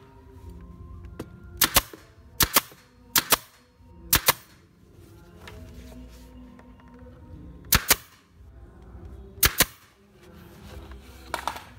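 JOK pneumatic brad nailer shooting nails into wooden cabinet trim: seven sharp cracks. The first four come about a second apart, then three more are spread out near the middle and end.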